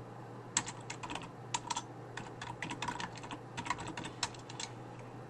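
Typing on a computer keyboard: quick, irregular key clicks in short runs, over a low steady hum.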